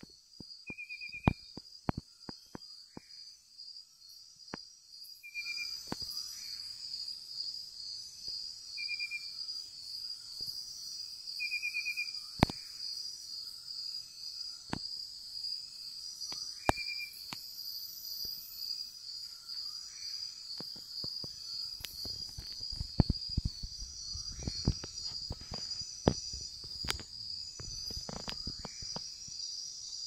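Night chorus of crickets and other insects: a steady, high, pulsing trill that grows louder about five seconds in, with short chirping trills now and then and scattered sharp clicks and knocks.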